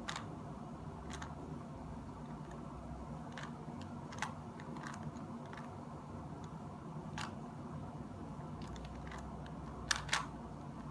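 Plastic Rubik's cube faces being turned by hand, giving scattered sharp clicks every second or few, with two quick clicks close together near the end, as an algorithm sequence is worked through.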